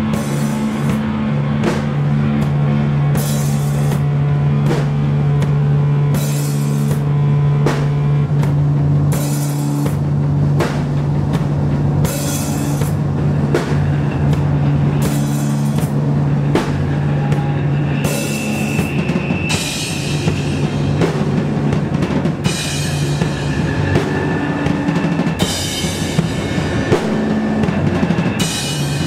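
Doom metal band playing live: guitar and bass hold long, low sustained notes over a slow drum beat, with cymbal crashes every second or two that come thicker in the second half.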